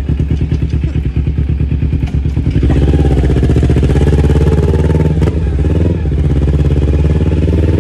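Motorcycle engine running under the riders, with a quick throbbing beat at first; about two and a half seconds in it picks up and runs louder and steadier, its pitch rising a little and briefly dipping near the end.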